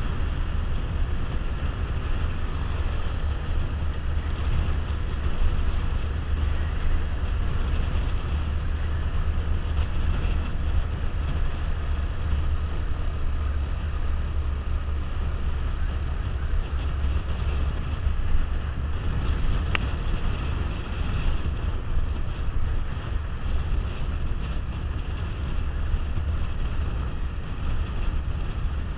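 Wind rushing over a helmet-mounted microphone on a moving Suzuki GZ150 motorcycle, a steady deep rumble, with the bike's single-cylinder engine running beneath it. One sharp click comes about twenty seconds in.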